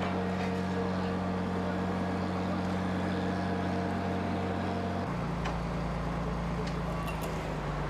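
Heavy vehicle engine running steadily; its note drops and changes about five seconds in, as with a shift in engine speed or load.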